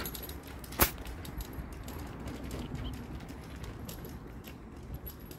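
Footsteps of a person walking on a paved street, about two a second, over a low rumble, with one sharper click a little under a second in.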